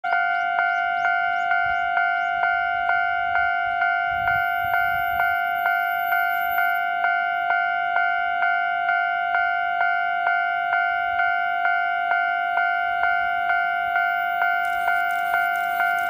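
Japanese railway level-crossing alarm ringing, an electronic bell striking in an even rhythm just under twice a second. About fifteen seconds in, the rushing noise of an approaching JR 185 series electric express train starts to rise beneath it.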